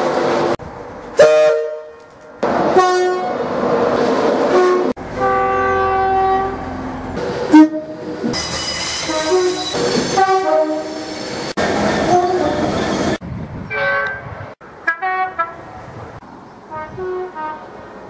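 A rapid run of British train horns from different trains, spliced one after another: short two-tone and single-tone blasts, each cut off abruptly and replaced by the next.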